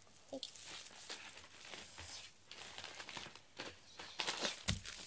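Rustling and swishing of a fabric ribbon cat teaser being waved and dragged over a foam floor mat, with scattered light taps and a soft thump a little before the end.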